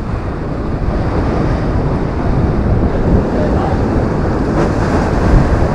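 Wind blowing on the microphone, mixed with ocean surf washing against the jetty rocks, as a steady noise.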